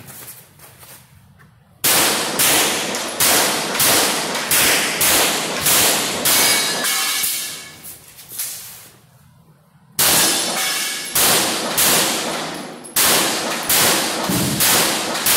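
Pistol fired in two rapid strings of about ten shots each, every shot echoing in a concrete-walled indoor range. The first string starts about two seconds in, a pause of roughly three seconds follows while the shooter moves, and the second string starts about ten seconds in.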